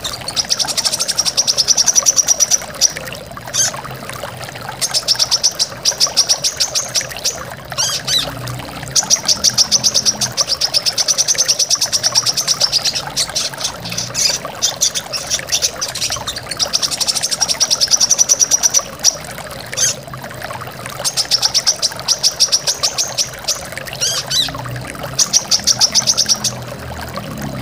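Brown-throated sunbird (kolibri kelapa) singing bouts of rapid, high, evenly repeated trilling notes, each bout lasting a second or more with short breaks between, over the steady rush of a waterfall.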